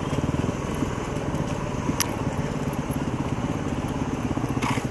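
Yamaha WR250R dual-sport motorcycle's single-cylinder four-stroke engine running at low revs on a slow trail ride, a steady pulsing. A sharp click about two seconds in and a short burst of hiss near the end.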